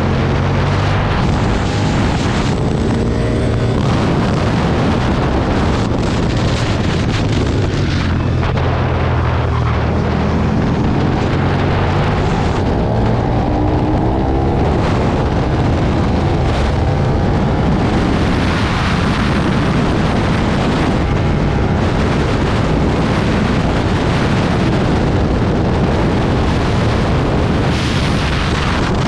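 2009 Aprilia Tuono's V-twin engine running hard on track, its pitch rising and falling repeatedly through acceleration and gear changes, with wind rushing over the microphone.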